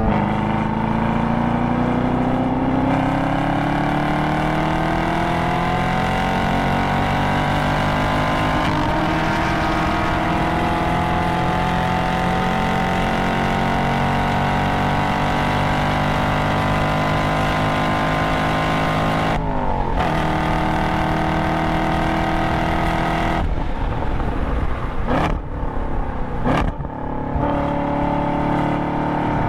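2022 Camaro SS 1LE's 6.2-litre LT1 V8, heard from inside the cabin, pulling hard with the pitch climbing through third gear, upshifting to fourth about nine seconds in and holding high revs down a straight. About twenty seconds in the revs drop off as it lifts and brakes, with a downshift to third and brief revs spikes, before it pulls again near the end.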